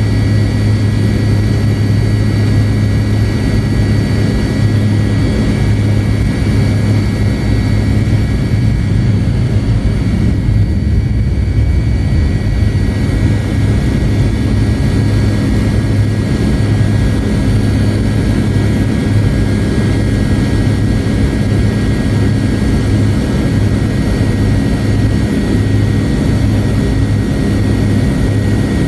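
Cabin noise of a McDonnell Douglas MD-88 taxiing, heard from a rear seat close to its tail-mounted Pratt & Whitney JT8D turbofans: a steady low engine hum with a steady high whine over it.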